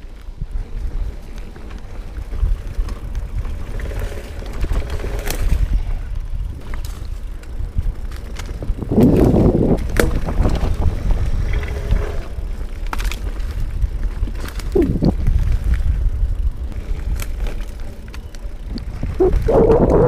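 Specialized Rockhopper Comp 29 hardtail mountain bike ridden fast on dirt singletrack: wind rushing over the microphone and tyres rumbling on the dirt, with scattered sharp knocks and rattles of the bike over bumps. It grows louder about nine seconds in and again near the end.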